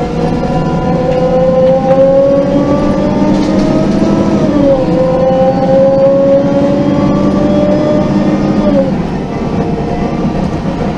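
MAN NG 273 LPG articulated bus with Voith automatic transmission, heard from inside, pulling away. A steady whine rises in pitch as it gains speed, dips briefly with a gear change about halfway through, rises again, then drops as it eases off near the end.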